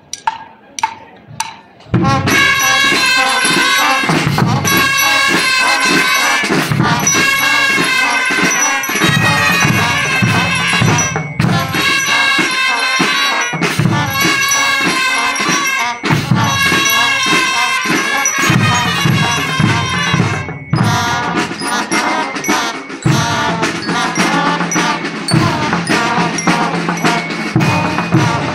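Student marching band playing brass and drums: a few separate drum strikes, then the full band comes in about two seconds in and plays on with a steady beat.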